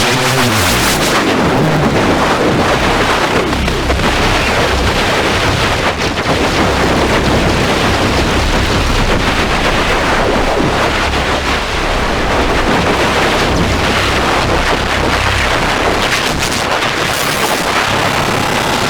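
Harsh noise music: a loud, unbroken wall of distorted static and crackle, with a brief surge of high hiss near the start and again near the end.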